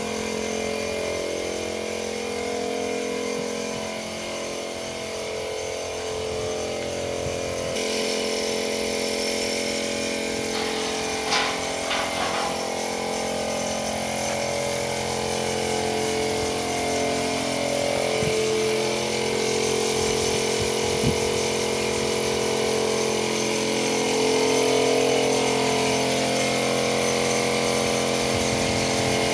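A motor runs steadily, its pitch drifting slowly up and down. A constant hiss joins it about eight seconds in.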